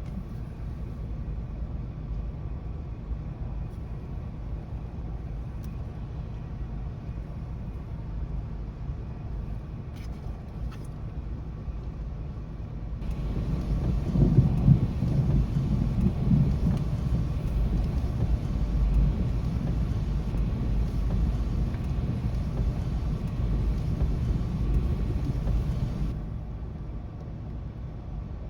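Thunderstorm outdoors: a steady low rumble, then about halfway a louder stretch of hissing noise with a deep rumble swelling soon after it starts, which cuts off abruptly a couple of seconds before the end.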